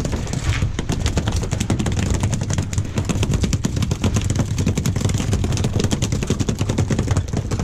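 Twin Honda outboard motors running steadily as the boat moves, with a dense, irregular clicking or ticking over the low rumble.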